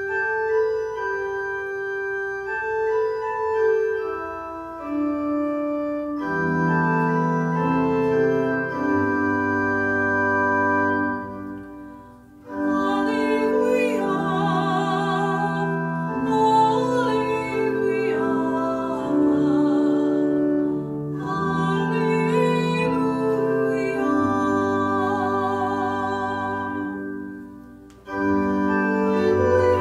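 Organ playing sustained chords as an introduction. About twelve seconds in, a solo singer with a wide vibrato joins, accompanied by the organ. The singing breaks off briefly near the end and then resumes.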